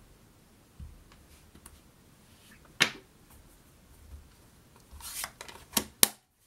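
Handling noises from a clear acrylic stamp block and a plastic Stampin' Pad ink pad on a wooden table. There is a single sharp tap about three seconds in, then a few rustles and clicks near the end, the last a sharp snap as the ink-pad case is closed.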